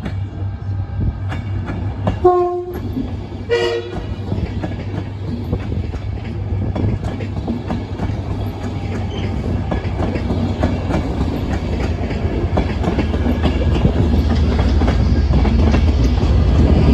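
Train on the main line with a steady low rumble of engine and wheels, growing louder toward the end. About two seconds in, its horn gives two short notes, the second higher than the first.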